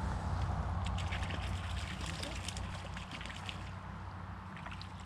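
Stream water trickling through a roadside culvert, over the low rumble of a passing vehicle that fades away steadily. A few light ticks come between about one and three and a half seconds in.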